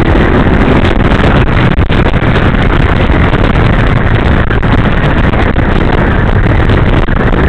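Loud, steady engine and road noise from riding a motor scooter in traffic, with wind on the microphone.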